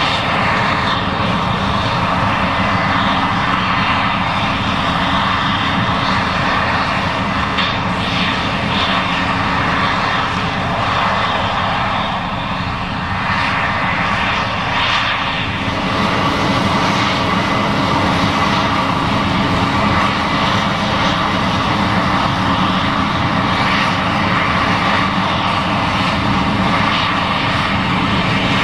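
Case IH 7140 Axial-Flow combine running steadily while harvesting corn: a loud, even engine and machinery drone that dips slightly about halfway through.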